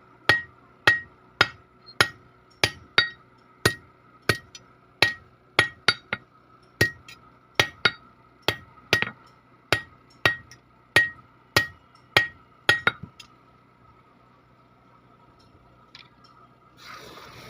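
A blacksmith's hand hammer beats iron on an anvil in a steady run of ringing blows, about two a second, then stops. Near the end a rough, noisy rustle begins.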